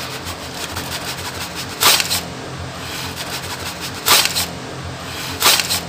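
Packaging rustling in three short bursts as a tripod in a plastic sleeve is pulled out of its cardboard box, over a low steady hum.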